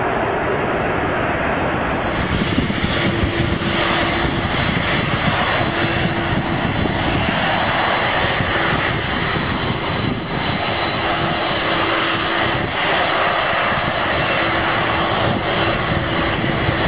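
Airliner engines running loudly and steadily, with a high whine that sets in about two seconds in and holds.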